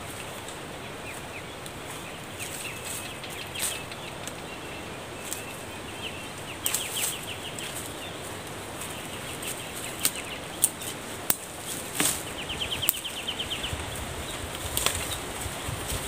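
Twigs and small branches of a thorny tree being snapped off by hand, with leaves rustling. Sharp cracks are scattered throughout, along with a few quick runs of small ticks, over a steady outdoor hiss.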